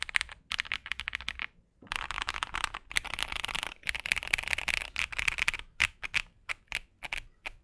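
Typing on a Finalkey V65 aluminum mechanical keyboard fitted with a force break mod and polyfill in the case: a fast run of keystrokes, a short pause, a long dense flurry, then slower single key presses near the end.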